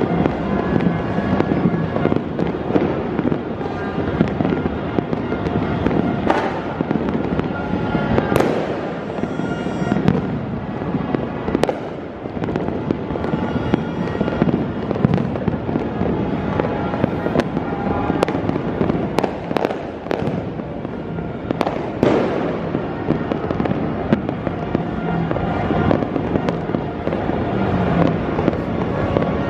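A continuous barrage of fireworks and firecrackers going off, dense overlapping bangs and crackling with no break, a few especially sharp bangs standing out.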